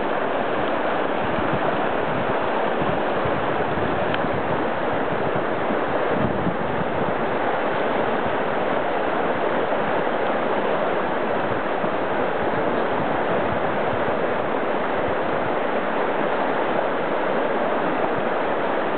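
Whitewater river rapids rushing steadily, a continuous even wash of turbulent water around a standing wave.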